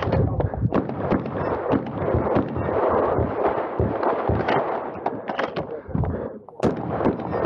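Benelli M2 SP semi-automatic 12-gauge shotgun being fired in a run of shots, heard from the shooter's own position, with a brief lull about six seconds in and then one sharp, loud shot.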